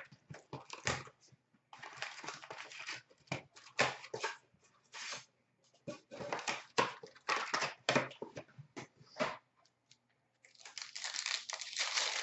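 Packs of 2018-19 Upper Deck SPx hockey cards being torn open and the cards handled: irregular wrapper tearing and crinkling with sharp card clicks and slides, pausing briefly twice, with a longer stretch of rustling near the end.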